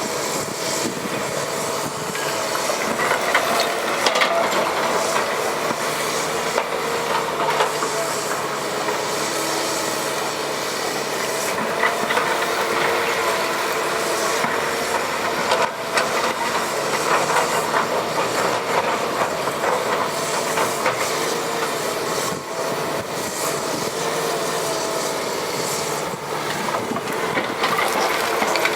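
Cat 319D hydraulic excavator working: the engine and hydraulics running steadily with a constant whine, over metallic clanking and rattling with occasional sharp knocks.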